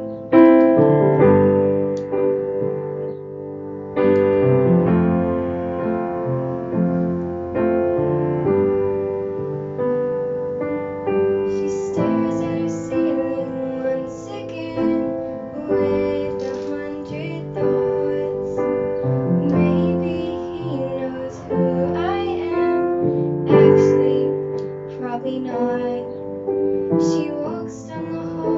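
A piano plays a slow song accompaniment of sustained chords. A girl's solo singing voice comes in about twelve seconds in and carries on over the piano.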